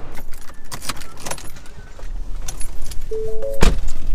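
Light rattling clicks as someone gets into a car, then a car door shutting with one heavy thud about three and a half seconds in. A few soft music notes start just before the thud.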